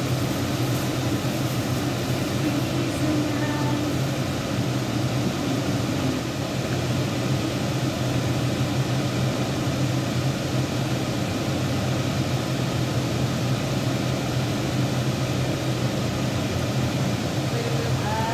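A steady low motor hum with an even rushing noise, unchanging in level.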